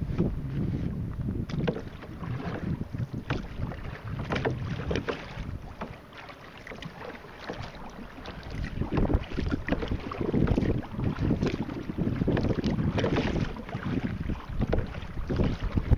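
Wind buffeting the microphone over a kayak, with choppy water slapping and splashing against the hull in many short hits. The wind eases a few seconds in and picks up again after about nine seconds.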